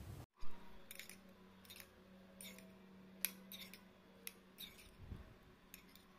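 Metal spoon clicking and scraping against a bowl of empek-empek in cuko sauce: a short knock about half a second in, then a run of faint clicks and scrapes roughly every half second.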